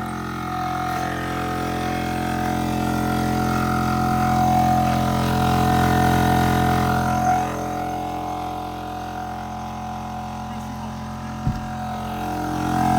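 OPENROAD 12V portable air compressor running with a steady droning hum while it inflates a flat 35-inch truck tyre. A brief thump comes near the end.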